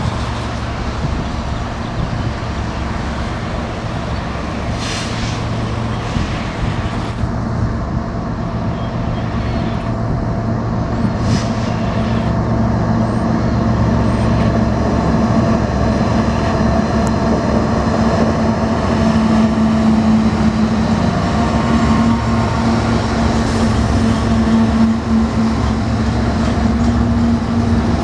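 Several BNSF diesel locomotives working together at the head of a train, their engines running with a steady low hum and rumble that grows louder as they pass close by.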